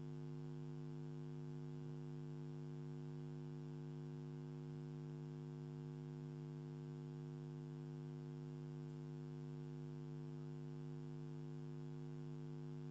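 Steady electrical mains hum with evenly spaced overtones, picked up by the microphone or recording chain.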